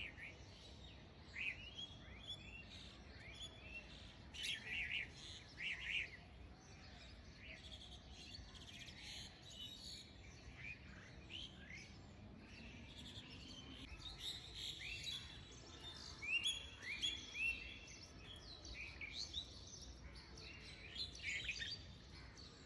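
Small birds chirping in clusters of short falling notes, over a faint steady background.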